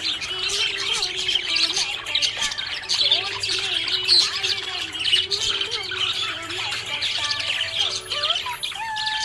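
Budgerigar chirping and warbling in a rapid, continuous chatter: happy budgie chirping.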